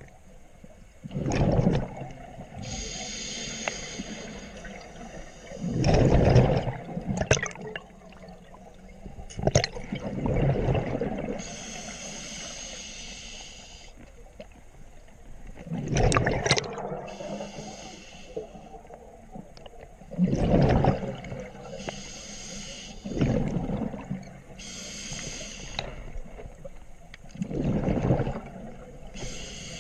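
Scuba diver breathing through a regulator underwater. A hissing inhale through the demand valve alternates with a loud burst of exhaled bubbles, about six breaths in a steady rhythm.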